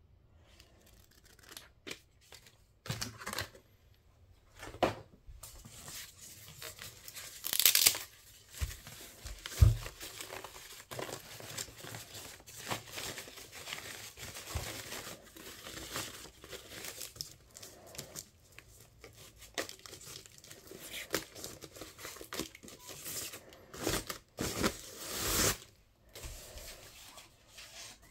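Plastic packaging wrap rustling and crinkling as it is pulled off a speaker, with louder ripping bursts about eight seconds in and again near the end. A short dull thump comes about ten seconds in.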